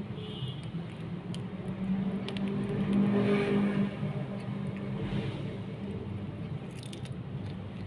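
A motor engine runs with a steady hum that swells to its loudest about three seconds in and then settles back. Scattered faint crunching clicks come from a kitten chewing a hard catfish head.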